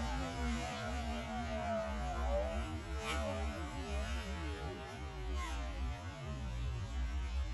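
Distant whine of an electric RC catamaran's motor, its pitch wavering up and down as the boat runs and turns on the water, over a steady low rumble.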